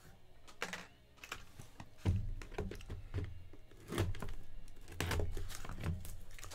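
Hands unwrapping a shrink-wrapped cardboard box of trading cards: a run of quick taps, clicks and crinkles of plastic film, with heavier low thumps from about two seconds in.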